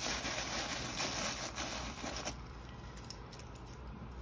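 Tissue paper crinkling as a wad is handled and tucked into a basket, for about two seconds, then quieter rustling with a few light clicks.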